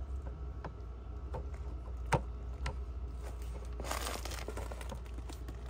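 Handling noise from a pole saw's plastic-and-metal cutting head being turned in the hands: scattered light clicks and taps, one sharper click about two seconds in, and a brief rustle around four seconds in.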